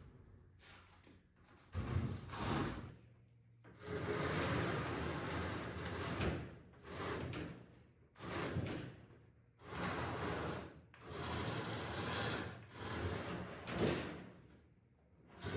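Heavy wooden cow feeder on skids being shoved across a concrete floor, its skids scraping and rubbing in about eight drags of one to two seconds each, with short pauses between pushes.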